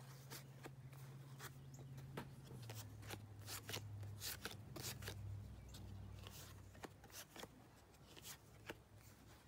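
1975 Topps baseball cards being handled and sorted: a string of faint, irregular clicks and rustles of card stock being picked up, flipped and set down. A low steady hum lies underneath.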